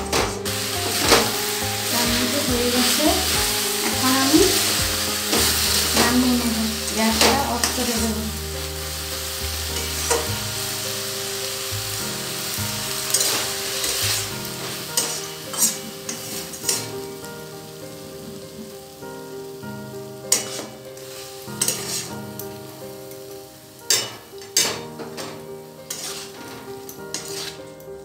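A banana-flower and prawn mixture sizzles in a metal kadai as it is stirred and scraped with a spatula, with sharp clicks where the spatula strikes the pan. The sizzle is strongest for the first ten seconds or so, then dies down while the scraping and clicking go on.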